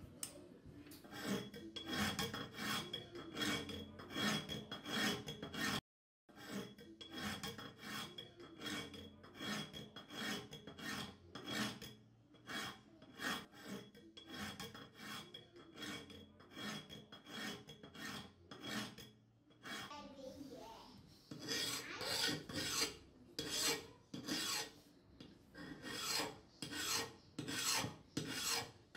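Hand files rasping back and forth on the rusty steel of an old wrench held in a vise, filing down rust and pitting in steady strokes about two a second. The sound breaks off briefly about six seconds in, and the strokes grow louder in the last several seconds.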